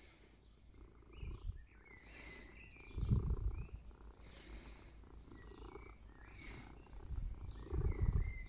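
Domestic cat purring while its chin and chest are rubbed. The purr comes and goes in swells, strongest about three seconds in and again near the end.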